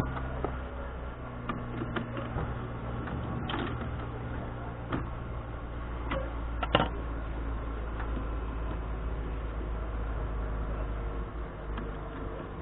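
Yamaha Grand Majesty scooter engine idling steadily, with a few sharp clicks and knocks over it, the loudest about seven seconds in.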